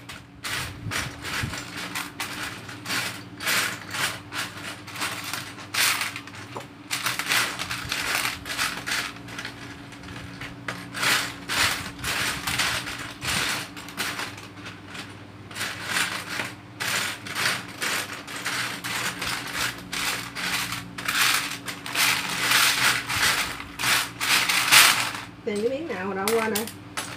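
Loose plastic Lego bricks clattering and clicking in quick irregular runs as hands rummage through a pile of pieces, over a steady low hum.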